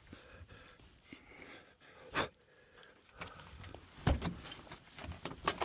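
Three sharp knocks or clunks about two seconds apart, with smaller clicks and faint rustling between.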